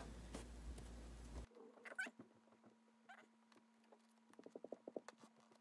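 Near silence, with faint scratching as a razor blade cuts into the vinyl seat-back cover over the release mechanism. A quick run of small clicks comes about four and a half seconds in.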